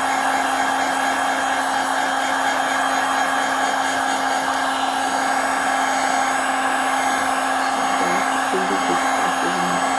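Handheld hot-air blower running steadily with a constant hum, heating a phone to soften the adhesive under its screen.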